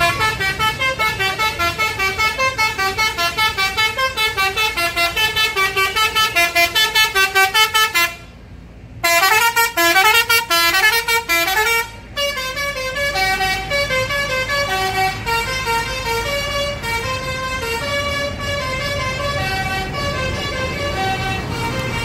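Tour bus 'basuri' telolet musical air horns playing fast melodic runs, about four notes a second, with a one-second break about eight seconds in. After about twelve seconds the tune goes on more quietly over a bus engine running as the bus passes close.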